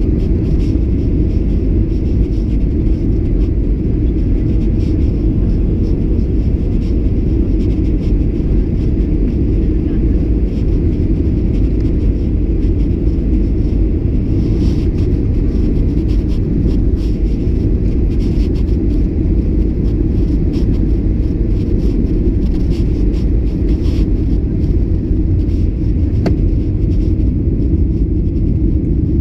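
Loud, steady cabin rumble of a Boeing 737-800 descending on approach: engine and airflow noise heard from a window seat over the wing.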